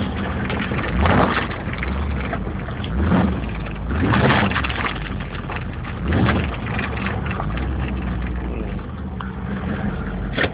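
A Camaro IROC-Z's V8 engine revving hard about four times, the pitch rising and falling back each time, between stretches of steady running.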